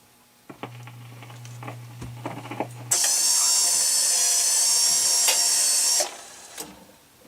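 Rock-Ola 443 jukebox mechanism cycling after a record ends. First a low motor hum with scattered clicks, then about three seconds of loud mechanical whirring and clattering that stops abruptly.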